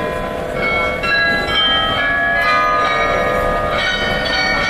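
The Munich New Town Hall glockenspiel playing a tune on its carillon bells. The bells are struck one after another, each note ringing on over the next, above a low hum of the crowd.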